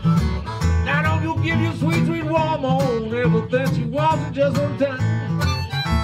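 Country-blues instrumental break: a harmonica plays a bending, wailing solo line over steady strummed Eastman acoustic guitar and a washtub bass. The harmonica lead comes in about a second in and carries the tune until near the end.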